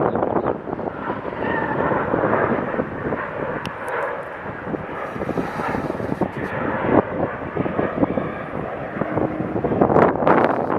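Wind buffeting the microphone: a dense rushing noise that swells and falls, with a few stronger gusts near the end.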